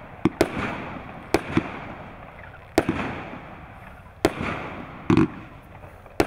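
A 25 mm, 49-shot consumer fireworks cake firing shot after shot: a sharp bang about every one to one and a half seconds, each trailing off in a fading echo.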